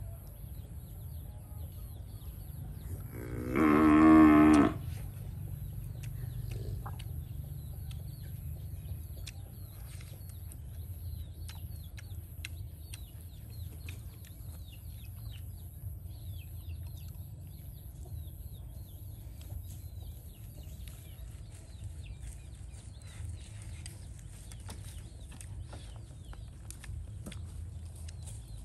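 A cow mooing once, a single loud call about a second and a half long, some three seconds in, over a steady low rumble and scattered faint ticks.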